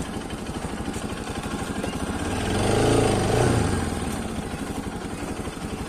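Bajaj Pulsar RS200 single-cylinder engine running, its revs rising and falling once about halfway through as the throttle is opened and released.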